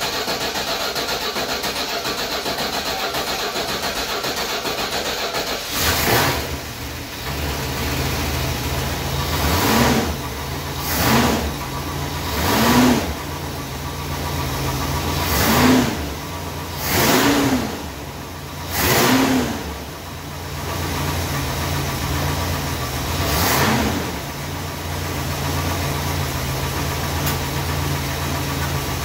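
Freshly rebuilt Chrysler 440 big-block V8 cranking for about six seconds before it catches and fires up from cold. It is then blipped seven times, each rev rising and falling, before settling into a steady idle.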